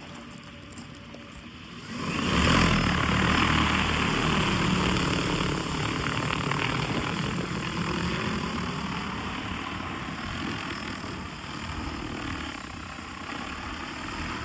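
Large agricultural spray drone's propellers whirring: the sound comes in abruptly about two seconds in and then slowly fades.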